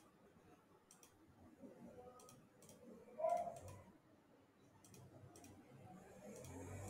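Faint computer mouse clicks, a handful spread sparsely over several seconds, with one brief soft tone-like blip about three seconds in.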